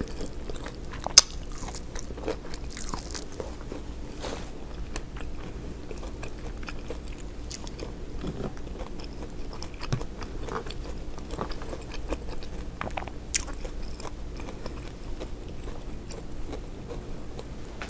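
A person eating seafood boil close to the microphone: chewing and biting with many small crunches and wet clicks, and a couple of sharper clicks, one about a second in and another later on.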